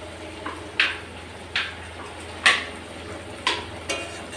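Metal spatula scraping and knocking against a steel kadai as chicken and potato curry is stirred over the heat: about six short scrapes, roughly one a second, over faint frying.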